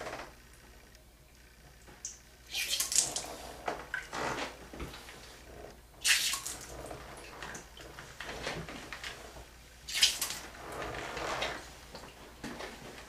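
Water squirted in three spurts, about four seconds apart, with splashing and dripping between them, as an ear plugged with wax is flushed with water.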